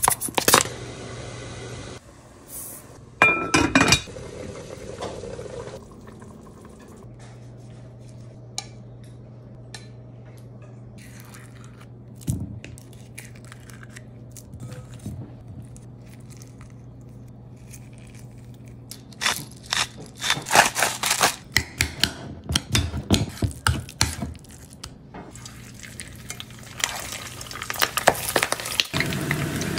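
Kitchen sounds of cooking: liquid poured into a pot, then scattered clinks and knocks of utensils against a glass bowl and pan, with a dense run of quick clatters past the middle, over a faint low hum. About a second before the end a loud steady sizzle of pork belly frying in oil starts.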